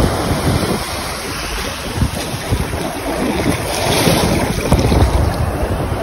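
Shallow surf washing over the sand, with wind buffeting the microphone in gusts. The wash swells about four seconds in.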